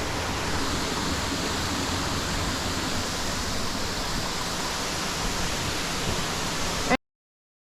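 Waterfall rushing, a steady even roar of falling water that cuts off suddenly about seven seconds in.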